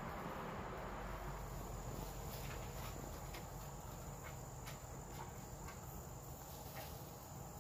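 Outdoor ambience: a steady high insect trill over a low, even rumble, with a few faint clicks.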